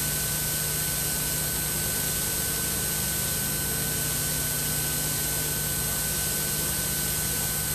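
Steady hiss with a low hum and faint thin high whines, unchanging throughout: the noise floor of an old videotape soundtrack, with no other sound.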